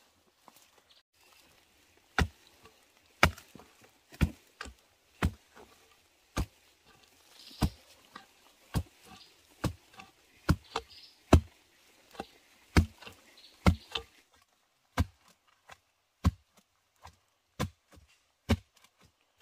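A blade chopping, with sharp strikes starting about two seconds in and coming roughly once a second, some in quick pairs, until near the end, most likely cutting bamboo shoots during harvesting.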